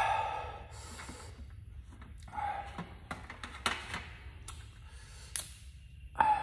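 A person eating close to the microphone: crisp bites and chewing clicks, with noisy breaths through the nose. Three louder bursts come near the start, about halfway and near the end.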